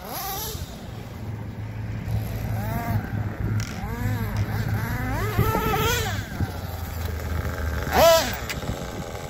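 Nitro engine of a Red Cat Earthquake 3.5 radio-controlled truck revving in short blips, its pitch rising and falling several times, with one sharp, loudest rev about eight seconds in over a steady low hum.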